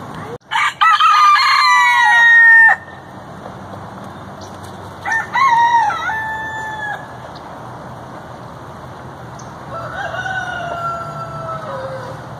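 Roosters crowing: three long crows, the first and loudest right at the start, a second a few seconds later, and a fainter third near the end.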